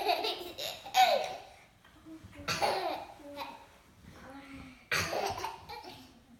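Laughter coming in four irregular bursts, each about half a second to a second long, with breathy, gasping catches between them.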